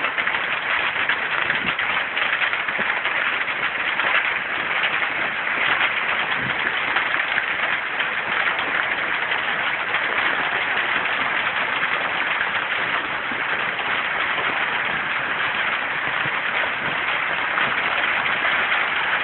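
Heavy downpour driven by strong wind through conifers, a steady loud hiss of rain that barely changes.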